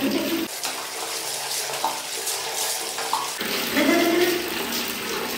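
Water poured from a plastic mug over a wet dog during its bath, splashing off the fur onto a tiled floor in a steady hiss.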